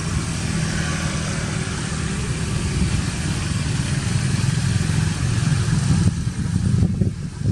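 A motor engine running steadily at idle, a constant low hum.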